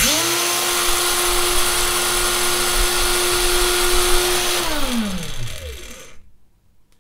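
WORX 20 V cordless angle grinder motor running unloaded at a steady speed with a steady whine, then cutting out about four and a half seconds in and spinning down with a falling whine. It stops once the battery's thermal-sensor wire is pulled off while it runs.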